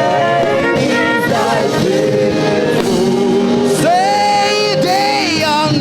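Choir singing a gospel worship song with live music accompaniment: long held notes with vibrato over the backing.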